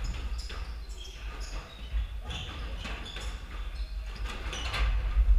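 Squash ball being struck by rackets and smacking off the court walls and wooden floor in a rally, a string of sharp, echoing hits at irregular intervals, the loudest about 2 seconds in and near the end.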